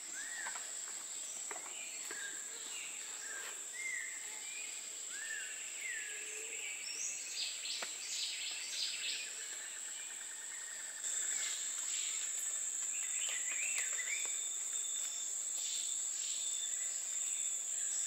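Tropical forest ambience: a steady high-pitched insect drone, with birds calling in short upswept whistles through the first half. The insect chorus grows louder suddenly about eleven seconds in.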